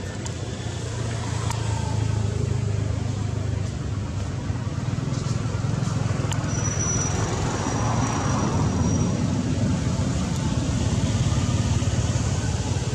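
Steady low drone of road traffic engines, swelling as a vehicle passes about halfway through. A thin high tone is heard for a couple of seconds about halfway.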